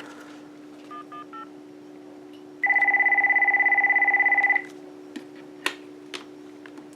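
A quick run of three faint touch-tone digits as a cordless phone dials from memory, then an electronic telephone ringer warbling loudly for about two seconds, as the dialed call rings through. A steady low hum runs underneath.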